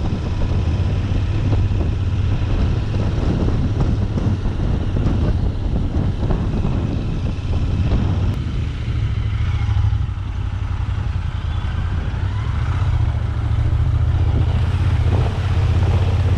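Royal Enfield Interceptor 650's parallel-twin engine running as the motorcycle is ridden, heard on board. The engine eases off about ten seconds in, then picks up again.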